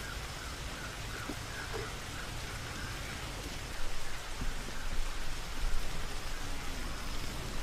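A steady, even hiss of outdoor background noise. From about four seconds in come irregular knocks and rustles as a split-bamboo feeding trough is set down and handled among puppies.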